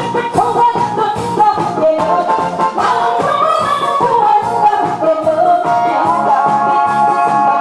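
A woman singing into a handheld microphone over amplified backing music with a steady beat.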